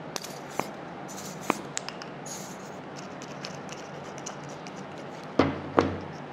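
Hands at work with craft materials: light clicks and rustles as a plastic glue bottle is squeezed over a small foam-wrapped paper tube. This is followed by two knocks about five and a half seconds in as the bottle is set down on the wooden table.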